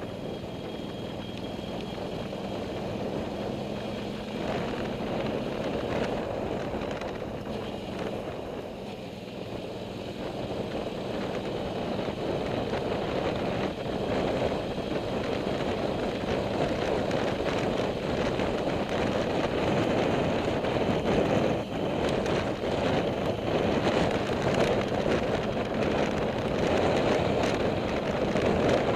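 Motorcycle riding along a road: the engine runs steadily under the rush of wind on the microphone, growing louder through the second half.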